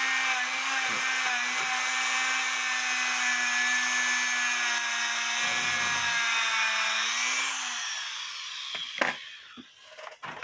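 Dremel rotary tool with a wire brush bit running steadily against a cuckoo clock movement plate: a steady motor whine under a loud scratchy hiss. About eight seconds in it is switched off and its pitch sinks as it spins down, followed by a few light clicks.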